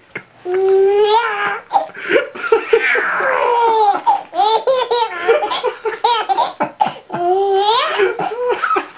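A baby laughing hard: long belly laughs and high-pitched squeals in fits, with only brief pauses.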